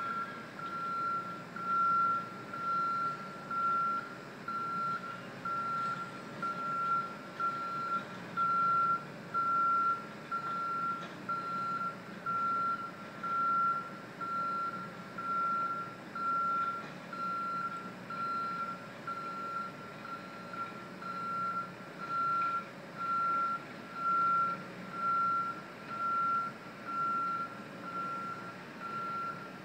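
Backup alarm on construction equipment beeping steadily, a single high tone about once a second, over a low steady hum.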